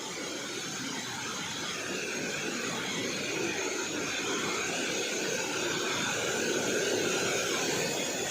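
Rushing water of a waterfall cascade, the third tier of Erawan Falls: a steady, even rush that grows a little louder over the seconds.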